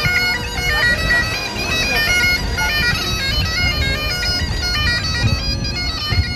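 Bagpipes playing a tune: a melody moving in quick pitch steps over the pipes' steady drone.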